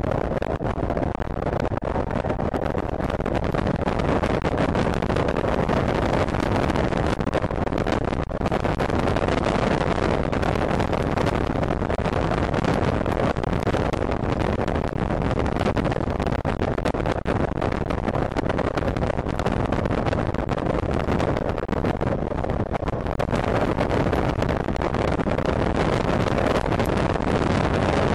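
Steady wind rush buffeting the microphone of a camera mounted on an electric racing motorcycle at speed, with no engine note.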